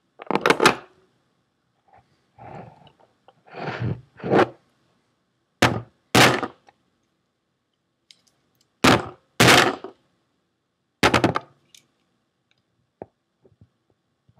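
Heavy metal hard-drive casing of a Seagate ST410800N being handled and knocked down on a wooden desk: a series of loud thunks and clunks, several coming in pairs.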